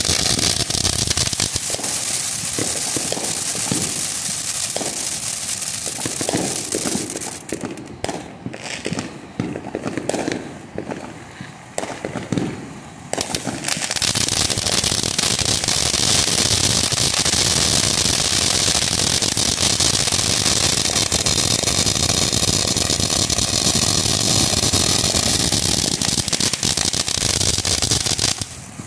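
Phantom Fireworks Crown Jewel ground fountain spraying sparks with a loud, steady hiss. About seven seconds in, the hiss drops away for several seconds to scattered crackles and pops. Then the full hiss comes back and carries on until it dies down at the very end.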